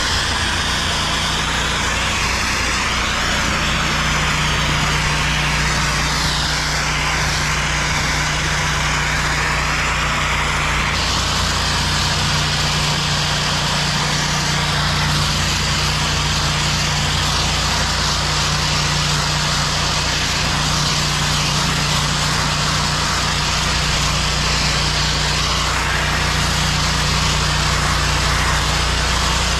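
Pressure washer running: a steady engine hum under the hiss of a high-pressure water jet rinsing pavement. The hiss shifts in tone about a third of the way through.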